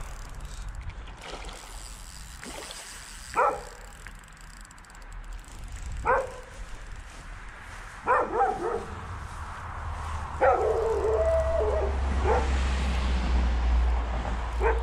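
A dog barking in short single barks every two to three seconds, with one longer, drawn-out yelp about ten seconds in.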